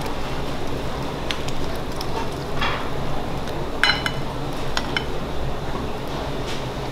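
Metal ladle clinking in a steel pot as sauce is scooped out: several sharp clinks, the loudest about four seconds in and ringing briefly, over a steady background hum.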